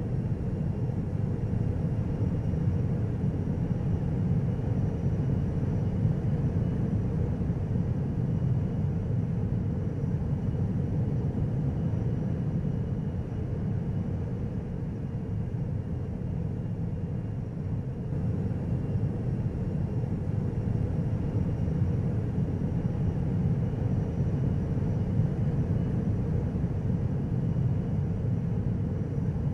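Tama Monorail train running along its elevated guideway, heard from inside the car: a steady low rumble of its rubber tyres on the concrete beam, with a faint high whine.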